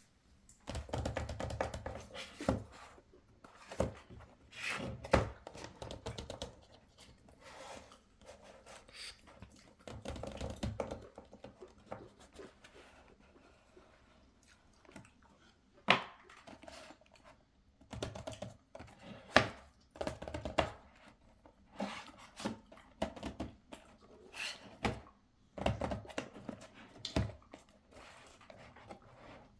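Hands unpacking a boxed watch: packaging rustling and scraping, with sharp clicks and knocks at irregular intervals.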